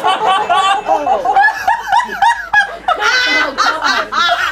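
People laughing: a steady run of short, high-pitched laughing bursts.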